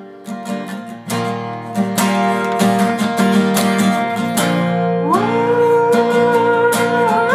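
Acoustic guitar strummed in a steady rhythm, louder from about a second in. About five seconds in, a voice slides up into one long held note.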